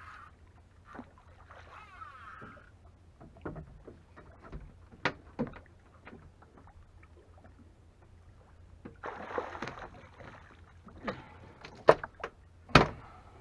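An amberjack splashing beside a small boat and knocking against the hull as it is hauled aboard by the leader. Scattered sharp knocks, a stretch of splashing about nine seconds in, and the loudest thumps near the end.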